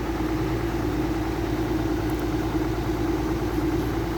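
Heavy machine's engine idling steadily, a constant low rumble with an even hum.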